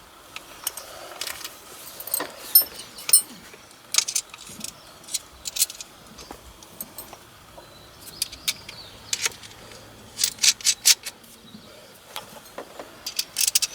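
Hand tools and small metal parts clicking and clinking against each other in irregular bursts during a short shifter install, with a couple of brief metallic rings and rapid runs of clicks near the end.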